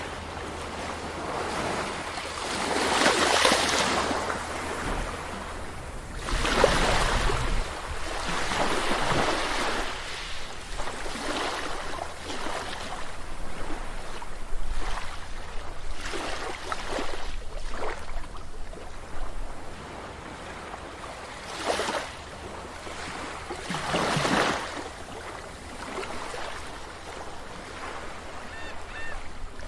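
Sea waves breaking and washing up a beach, the surf surging louder every few seconds between quieter wash. A brief faint high call sounds near the end.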